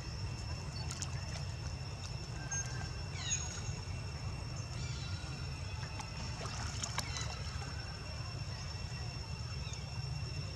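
Water sloshing and splashing as long-tailed macaques swim and jostle in a pond, over a steady low rumble and a constant high whine. A few short falling chirps sound about three seconds in.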